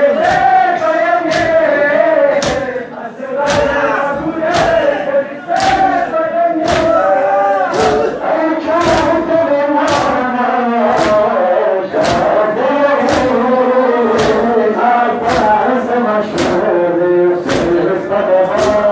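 A crowd of men chanting a mourning lament together while beating their chests in unison, a sharp slap about once a second keeping time under the chant.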